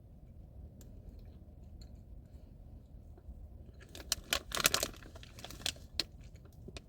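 Short crinkling and crackling of a plastic candy bag as a piece is picked out, loudest about four to five seconds in, over a low steady hum.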